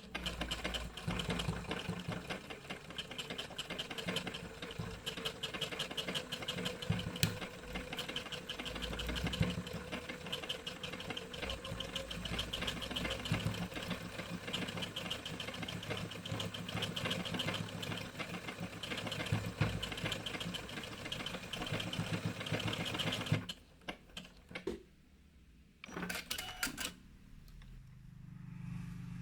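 Elna Excellence 720Pro computerized sewing machine stitching a decorative monogram at a steady, rapid pace, stopping about 23 seconds in. A few short clicks follow after it stops.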